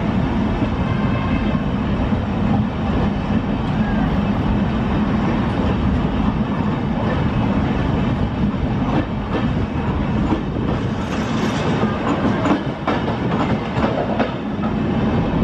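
Red-and-grey LHB passenger coaches of an Indian Railways express rolling past at speed: a steady wheel-on-rail rumble with clickety-clack over the rail joints. A run of sharper clacks comes a little past the middle.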